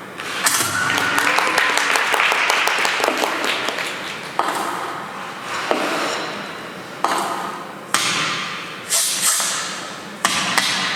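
A few seconds of quick, close-spaced clapping, then a run of sharp hits or scrapes about every second or so, each starting suddenly and fading away, in the echo of an ice rink.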